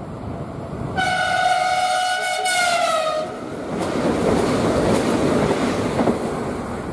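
Renfe Class 449 electric multiple unit sounding one long horn blast that dips in pitch near its end, then rushing past at speed with wheels clattering over the rail joints.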